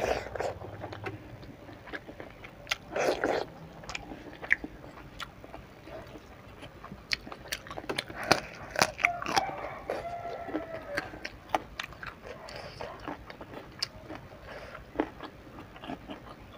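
Close-up eating sounds: a person chewing mouthfuls of rice and curry, with many short sharp smacking clicks of the mouth.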